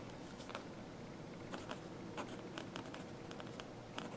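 Pilot Kakuno fountain pen nib scratching faintly on notebook paper as a word is handwritten, in short, irregular strokes.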